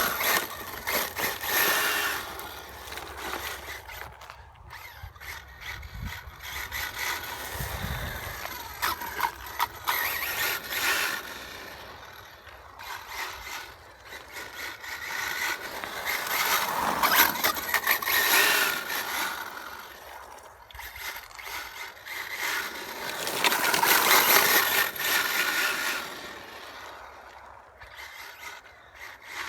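Brushless electric motor and drivetrain of an HPI WR8 Flux RC rally car whining as it runs on a wet road, swelling and fading in several bursts as the throttle is worked.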